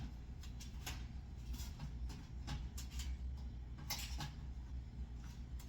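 Scattered small clicks and taps from hands working on the wiring of a ceiling light fixture being taken down, a dozen or so at uneven intervals with a small cluster about four seconds in, over a steady low hum.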